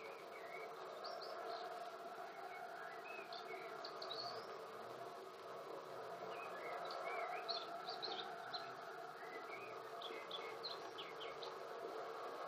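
Faint birdsong, clusters of short quick chirps every second or two, over a steady background hiss.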